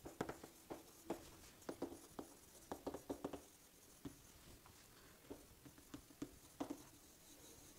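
Chalk writing on a chalkboard: faint, irregular taps and short scratches as letters are written, busier in the first few seconds and sparser toward the end.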